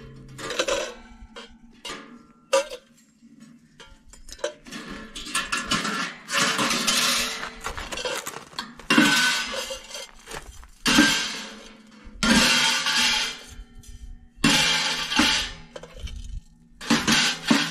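Metal tent-stove parts being packed away: stainless stove-pipe sections and a wire grill grate clinking and scraping against the stove's steel box. Several separate scrapes and clanks, each about a second long, with short pauses between.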